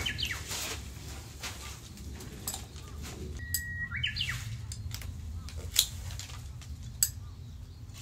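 A Japanese bush warbler sings its 'hoo-hokekyo' song: the flourish ending one song at the very start, then a full song about three and a half seconds in, a held whistled note followed by a quick rising and falling warble. Scattered light clicks run through it, with two sharp clicks standing out near the end.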